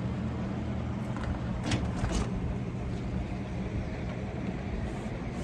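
A motor running steadily with a low, even hum, with a few light knocks about a second and two seconds in.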